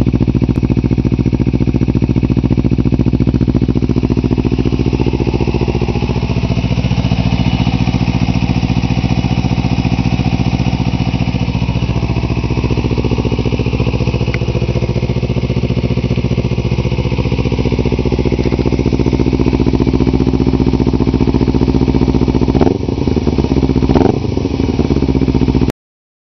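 Kawasaki Ninja 250R's parallel-twin engine idling steadily through a Yoshimura full-system exhaust with a carbon-fibre muffler. Near the end it is revved twice in quick blips, then the sound cuts off suddenly.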